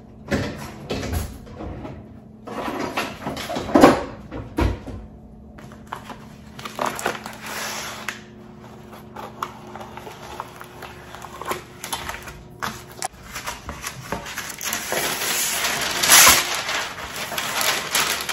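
Irregular crinkling and rustling of plastic packaging with scattered clicks and knocks from handling, as raw bacon is unpacked and laid out on a baking pan. Sharpest crackles come about 4 s in and again about 16 s in.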